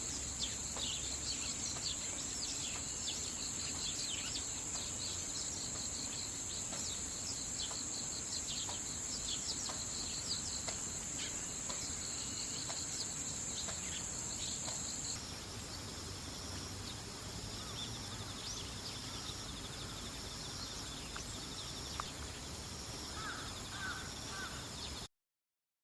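Eurasian tree sparrows chirping, many short calls in quick succession, over a steady high-pitched trilling of crickets. The chirping thins out about halfway through and the insect sound shifts, and everything cuts off abruptly near the end.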